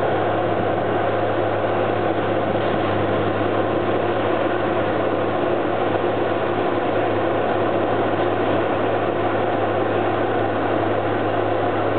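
500 hp tracked forestry mulcher running steadily, its engine and mulching head making a continuous loud drone with a constant low hum as it works through mature gorse.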